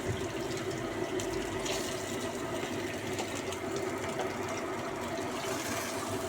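Pot of water with vegetables boiling on the stove: a steady bubbling hiss over a constant low hum, with a few light ticks.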